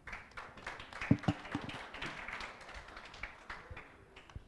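Audience applauding in a dense patter of claps that thins out and stops near the end, with two louder knocks about a second in.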